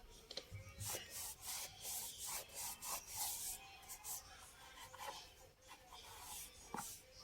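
A stiff brush scrubbing in quick, repeated strokes, about two to three a second.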